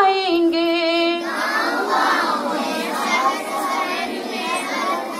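A woman sings a line into a microphone, holding its last note for about a second, then a group of young children sing together in chorus.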